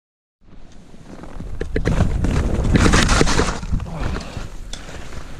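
Wind rushing over a helmet-mounted GoPro's microphone and skis scraping and hissing over snow on a downhill run. It begins about half a second in, is loudest around the middle, and has scattered clicks and knocks.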